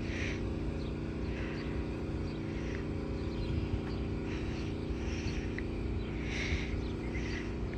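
Outdoor ambience: a steady low hum with short bird chirps about every second.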